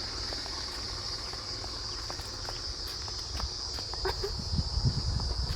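Insects, most likely crickets, trilling in a steady high, unbroken chorus over a low rumble, with a few faint knocks near the end.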